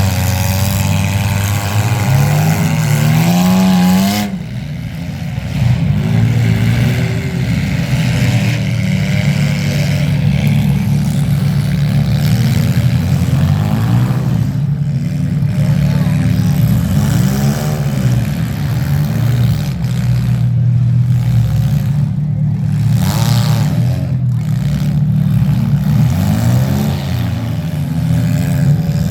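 Demolition derby car engines running and revving, with one engine climbing in pitch about three seconds in.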